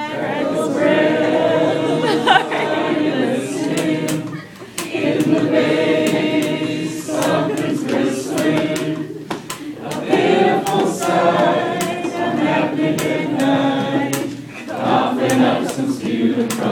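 Several voices singing together in chorus: held notes in phrases of a few seconds, each broken by a short pause.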